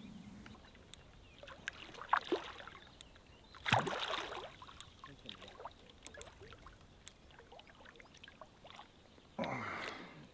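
Hooked carp splashing at the water's surface as it is played in to the net: sudden splashes about two seconds in, a louder one about four seconds in and another near the end, with small clicks scattered between.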